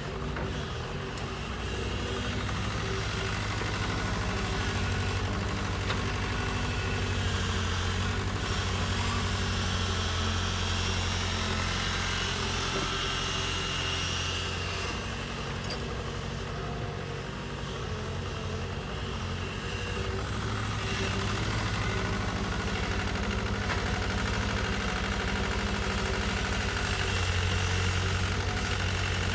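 Kobelco hydraulic excavator's diesel engine running steadily with a low, even hum, rising a little in level near the end.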